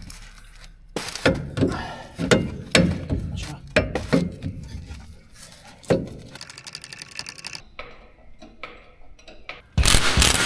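Metal hand tools clanking and knocking on engine parts in a string of separate strikes, with a quick run of ratchet-like clicks about six seconds in. A loud, dense sound starts near the end.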